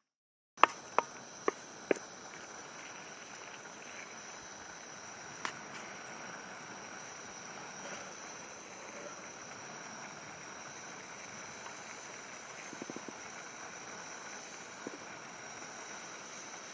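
Camping stove burning with a steady hiss while meat fries in the pan. Four sharp clicks come in the first two seconds, and a steady high insect chorus runs underneath.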